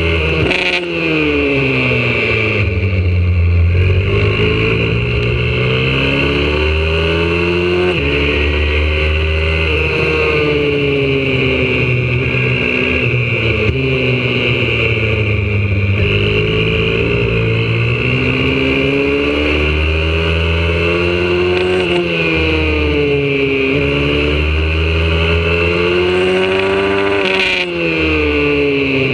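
Single-cylinder four-stroke engine of a YCF 125cc pit bike, heard close up from on board while lapping, its pitch falling off under braking and climbing again under throttle several times over.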